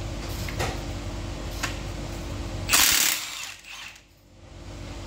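Metallic clicks and clanks of clutch and gearbox parts being handled, over a steady low hum. About three seconds in there is a short, loud rushing noise, and then the sound briefly drops away.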